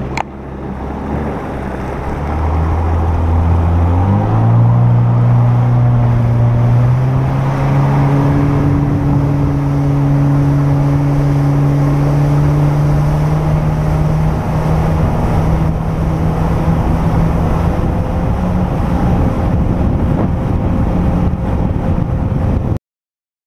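Supercharged four-cylinder engine of a 2017 Yamaha FX SVHO jet ski accelerating to full throttle. Its pitch rises in steps over the first few seconds, then holds high and climbs slowly, over a rush of water. The sound cuts off suddenly near the end.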